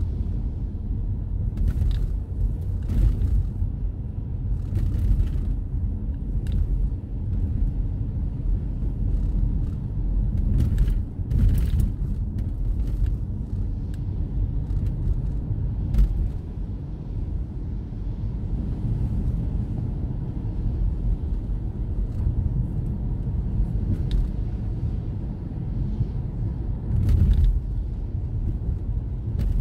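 Steady low rumble of a car's engine and tyres heard from inside the cabin while driving on wet pavement, with a few brief hisses scattered through.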